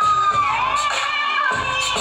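Music played loud through a hall sound system, with a long held note that slides down about half a second in, and an audience cheering and shouting over it.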